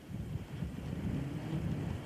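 Skoda Fabia rally car engine heard from the stage side, a low rumble mixed with wind on the microphone. A faint engine note rises about one and a half seconds in.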